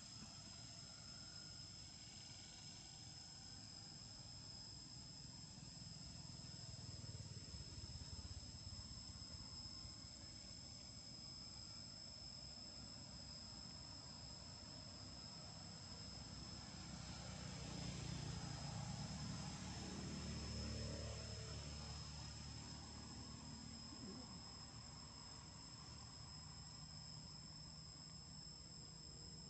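Faint, steady insect chorus of crickets or cicadas, two unbroken high-pitched tones held throughout. A low rumble swells and fades about two-thirds of the way through.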